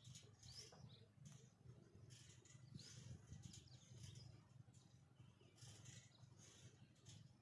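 Near silence: faint outdoor ambience with a few short, high chirps scattered through it.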